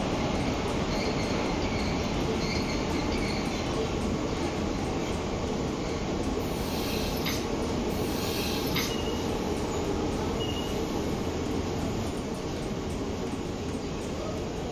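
Sambalpur–Shalimar Superfast Express passenger train rolling along the rails with a steady rumble, its wheels squealing in two high bursts a little past the middle.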